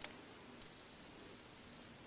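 Near silence: room tone, with one faint click right at the start.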